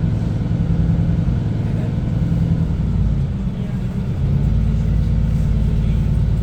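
A motor running steadily with a low rumble, easing off briefly a little past halfway and then picking up again.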